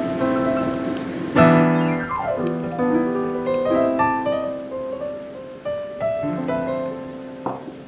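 Gentle solo piano music, single notes and chords that ring and fade, with a quick descending run of notes about a second and a half in.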